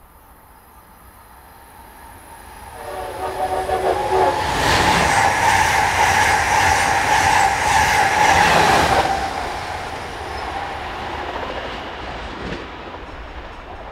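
Amtrak Acela Express high-speed electric trainset sounding its horn about three seconds in, then passing close by at speed with its wheels clicking in a quick regular beat over the rail joints. The sound grows loud and fades again after about nine seconds.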